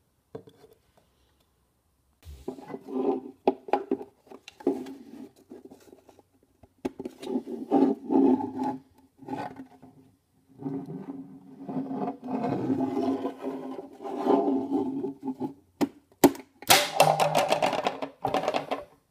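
Hard 3D-printed plastic ukulele parts rubbing and scraping against each other as they are handled and fitted together, in irregular bursts with knocks and clicks. A brighter, denser run of clicking scrapes comes near the end.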